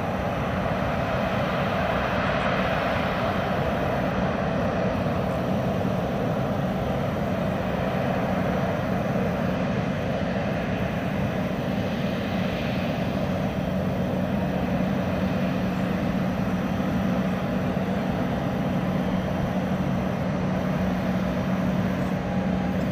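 Airbus A380's four turbofan engines running steadily at taxi power: an even rushing drone with a low hum and a higher steady tone that holds without change.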